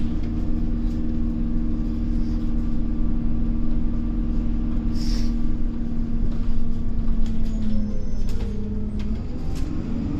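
Alexander Dennis Trident Enviro400 double-decker bus's diesel drivetrain heard from inside the cabin while the bus drives: a steady low rumble with a held droning note that shifts and fades about eight seconds in. A brief high chirp sounds about five seconds in.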